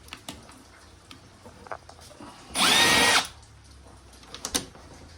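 Battery-powered drill-driver whirring once for under a second as it backs out a screw from a TV's back panel, with a few small clicks before and after.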